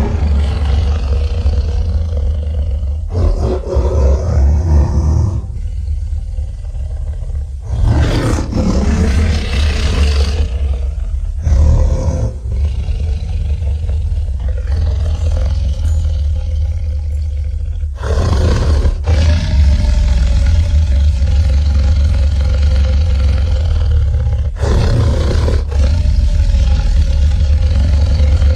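Designed Tyrannosaurus rex roars and growls for a film creature: several loud roars, a few seconds apart, over a deep, steady rumble.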